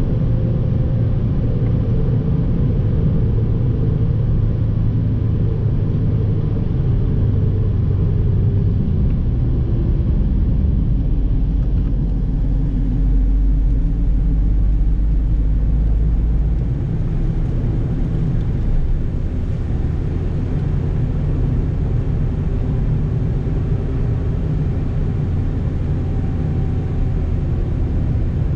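Toyota Yaris heard from inside the cabin at track speed: engine and road noise, with the engine note changing pitch several times as the car accelerates and lifts. A deeper low rumble comes in from about ten to sixteen seconds in.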